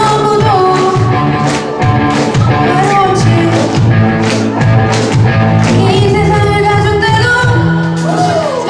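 Live rock band playing a pop song: a female vocalist sings over electric guitars, bass, keyboard and drums, with drum hits keeping a regular beat through the first half.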